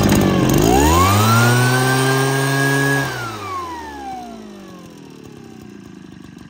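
Arimitsu 513 backpack seed-spreader's small two-stroke engine revved up. Its pitch climbs steeply about half a second in and holds high for about two seconds. Then the throttle is let go and the engine slowly winds back down toward idle.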